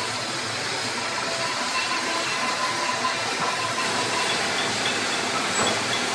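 Cutting torch cutting steel plate: a steady, unbroken hiss, with a few faint steady tones behind it.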